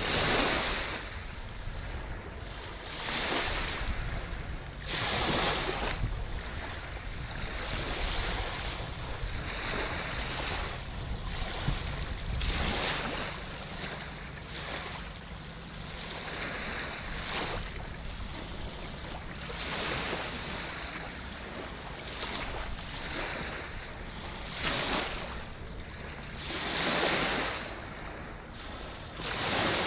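Elbe river water washing against the shore, swelling and falling every few seconds, with wind on the microphone.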